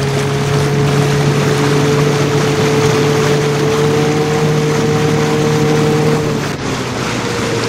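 Two-stroke outboard motor running steadily, pushing the small boat along at speed, over a rush of water and wind. The engine note dips briefly about six and a half seconds in.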